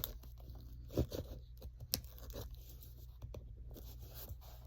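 A small sharp knife cutting open a cardboard box, with a few sharp snaps and tearing sounds over faint scraping and rustling.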